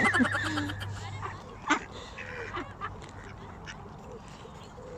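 Ducks quacking in short, scattered calls, the loudest right at the start.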